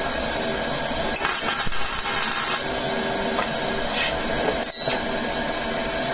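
Wire-feed welder arc crackling in two short tack welds: one lasting about a second and a half, then a brief one a couple of seconds later, over a steady machine hum.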